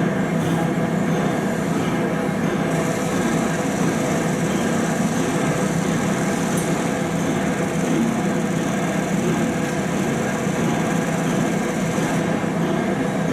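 A train's diesel engine running steadily: a constant loud drone with several steady tones.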